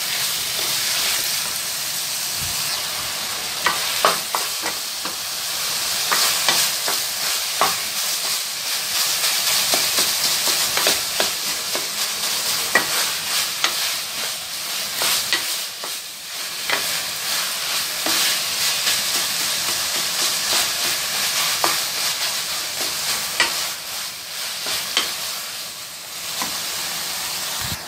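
Minced meat and sliced onions sizzling in hot oil in a kadai on high flame while being fried (bhuna). A spatula stirs and turns the mince steadily, with irregular scrapes and light knocks against the pan.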